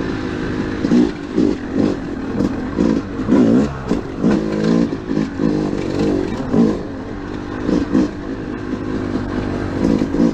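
2013 Yamaha YZ250's single-cylinder two-stroke engine on a trail ride, revving up and falling back in short bursts about once a second as the throttle is worked, with some clatter from the bike.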